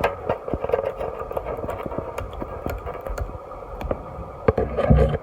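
Creek water sloshing and splashing around someone wading, a steady watery rush with many small irregular ticks and a few low thumps near the end.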